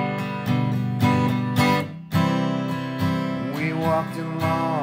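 Song accompaniment: acoustic guitar strumming chords in an instrumental passage, about two strums a second, with a note bending up and back down near the end.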